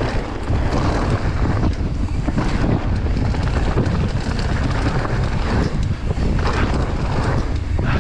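Wind buffeting the camera microphone over the rumble and rattle of a mountain bike rolling fast over loose dirt and gravel.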